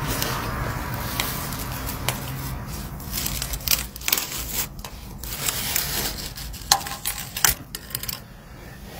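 A steady hiss for the first few seconds, then many sharp crinkles and clicks as a clear flexible plastic tube is handled and pulled off a pipe end, with a few louder snaps near the end.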